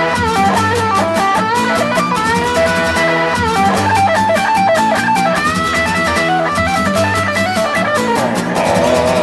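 Background music: a guitar-led track with a steady beat and a plucked melody.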